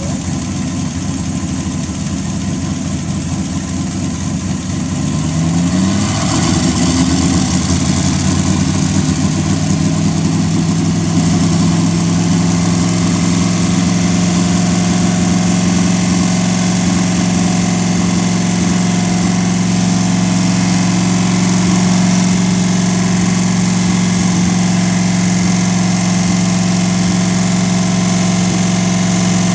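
Supercharged-era 320 cubic inch Buick straight-eight in a land-speed lakester running freshly started; its speed rises about five seconds in and then holds a steady fast idle.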